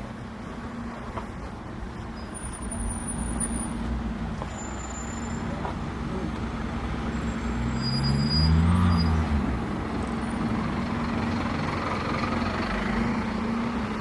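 Double-decker sightseeing bus engine running close by with a steady hum over street traffic. About eight seconds in the engine note rises and falls, the loudest moment.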